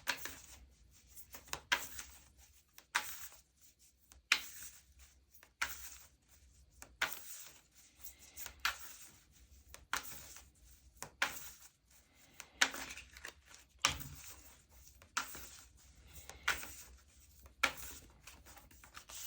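Tarot cards shuffled by hand: a short papery slap of cards about every second and a half, in an even rhythm.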